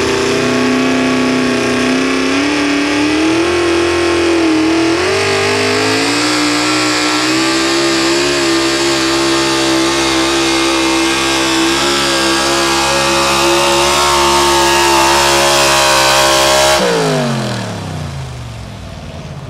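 Pro stock two-wheel-drive pulling truck's engine running at high revs under full load as the Chevrolet pickup drags the sled, its pitch climbing over the first few seconds and then holding steady. Near the end the throttle is cut and the engine winds down quickly.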